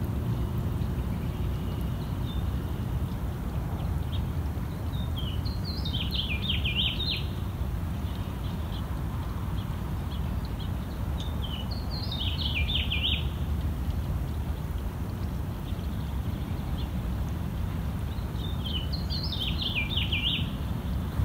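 A songbird singing a short phrase of quick high notes three times, about every six or seven seconds, over a steady low rumble.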